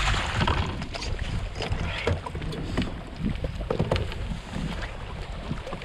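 Wind rumbling on the microphone, with scattered knocks and rattles around the kayak as a freshly caught bass is brought aboard and handled.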